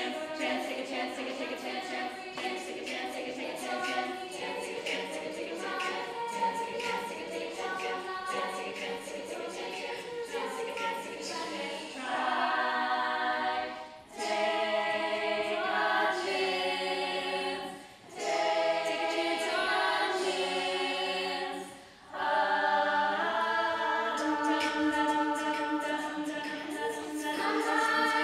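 Women's a cappella group singing in harmony, voices only. About twelve seconds in the voices swell into loud held chords, broken by three short pauses about four seconds apart.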